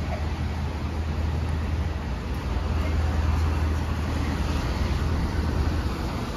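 City street traffic on wet roads: a steady low engine rumble under an even hiss of tyres on wet pavement as a box truck and a car cross the intersection. The rumble eases a little about five seconds in.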